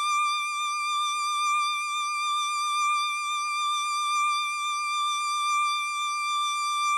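A single high note held steadily on a synthesizer lead, with a slight, even wobble in pitch and loudness, left sounding alone after the lower chord has stopped.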